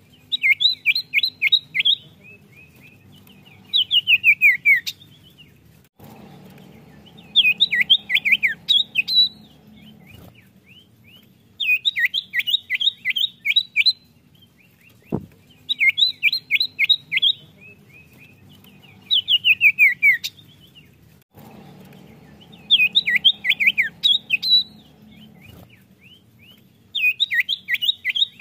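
Common iora (cipoh) singing: fast runs of sharp whistled notes, each phrase about a second long, repeated in bursts of two or three with short gaps between. A faint low hum comes and goes behind the song, and there is one click about fifteen seconds in.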